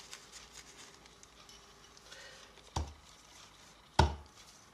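Two sharp knocks about a second apart in the second half, a tack hammer striking upholstery tacks into a wooden stool frame to fix webbing, with a few faint clicks before them.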